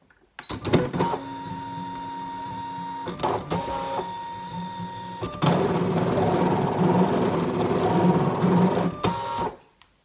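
Brother ScanNCut electronic cutting machine cutting a circle from card: its carriage motors start with a click and run with a steady whine, turn louder and rougher about halfway through, and stop shortly before the end.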